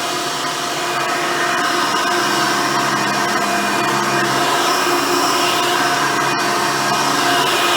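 Hoover Decade Elite Soft & Light vacuum cleaner running steadily with its brush roll on, a continuous motor hum whose tones shift slightly about halfway through.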